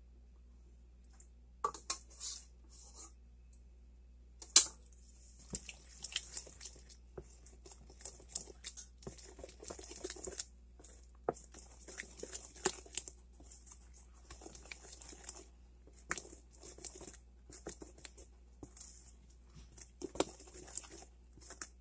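Wooden spoon stirring canned peach chunks into wet cake batter in a plastic bowl: irregular squishing and scraping with small knocks of the spoon against the bowl, and one sharp knock about four and a half seconds in.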